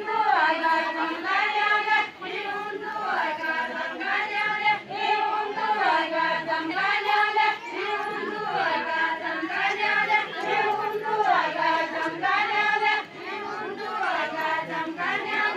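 A group of voices singing a Deuda folk song together, one short melodic phrase repeated over and over.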